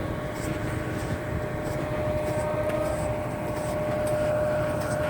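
A vehicle running steadily: low rumbling road and engine noise with a steady whine held on one pitch.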